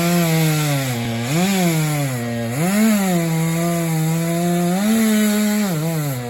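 Chainsaw running at high revs while trimming a felled tree. The engine note drops and picks back up several times as the throttle is eased off and squeezed again.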